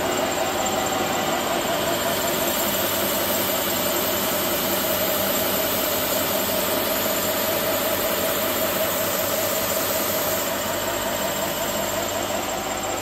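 Proofy BSM-2000 edge sander running steadily: a steady motor and belt whine with a broad hiss, while the edge of a wooden board is sanded against the moving belt.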